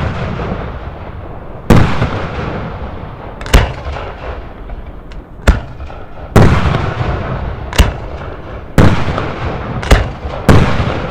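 Aerial firework shells bursting one after another: about eight sharp bangs at uneven intervals, each trailing off in a long echoing rumble and crackle.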